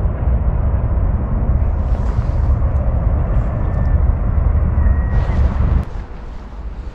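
Wind buffeting the microphone on an open riverbank: a heavy, steady low rumble with a rushing hiss over it. It drops off abruptly about six seconds in, leaving a much softer wind noise.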